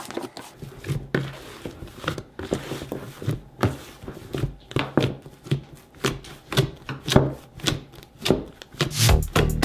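Hands kneading and squeezing a large batch of fluffy shaving-cream slime in a plastic tub: an irregular run of wet squelches and sharp clicks, several a second.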